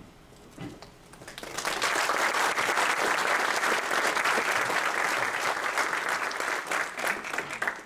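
Audience applauding, many hands clapping together. It swells about a second and a half in, holds steady, and stops near the end.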